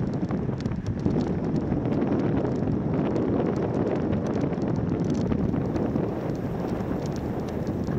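Wind buffeting the microphone of a cyclist's camera while riding on the road: a steady rumbling rush with scattered faint ticks.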